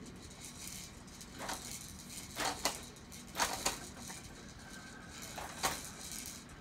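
Plastic baby activity jumper rattling and clacking as the baby moves in it: about half a dozen short rattles spread over a few seconds.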